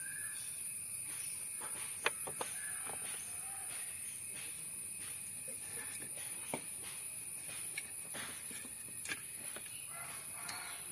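Steady high-pitched drone of insects, with occasional faint clicks and a few small chirps.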